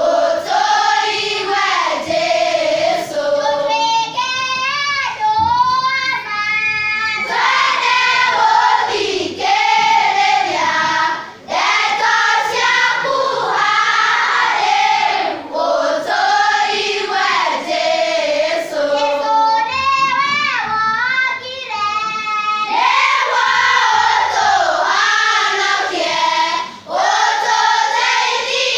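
Children's choir singing a worship song, many young voices together. There are short breaths between phrases, about eleven seconds in and again near the end.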